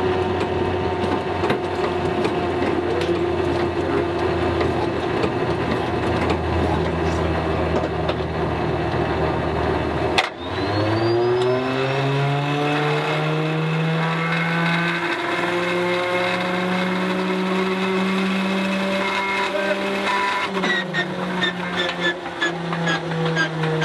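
Stinson L-1's Lycoming R-680 nine-cylinder radial engine running unevenly, with a brief drop about ten seconds in, then picking up in pitch as it is given more throttle, with popping near the end. The crew hears it as the same fault as before, the engine behaving as if incorrectly timed, which they take for a failure in the accessory drive.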